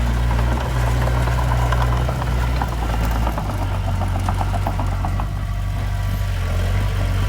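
Heavy earthmoving machine's diesel engine running steadily, with its note changing about three seconds in. A fast metallic clicking runs through the first part.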